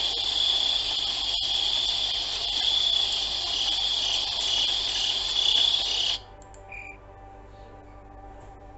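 Steady, high-pitched insect trilling, stopping abruptly about six seconds in.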